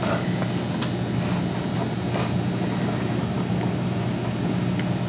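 A steady low hum runs throughout, with faint, scattered scrapes of a small metal offset spatula spreading icing over a silicone lace mat.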